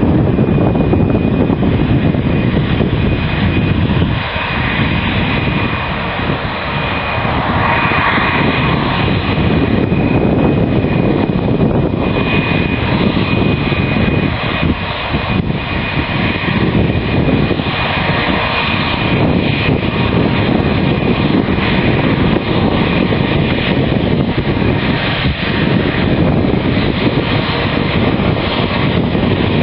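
Airbus A320 jet engines running at taxi power: a steady loud rumble with a thin, high whine held over it.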